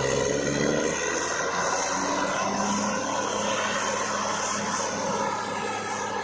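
Borewell drilling rig running: a steady mechanical drone made of several held tones over a rushing noise, with no letup.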